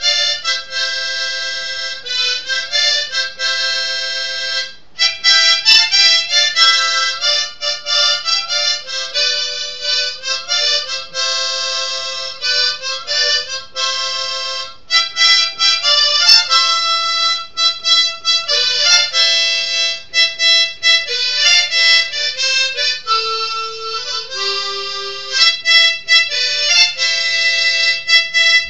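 Solo harmonica playing a Christian devotional melody, note after note with overtones and the odd chord, broken by short pauses about 5 and 15 seconds in.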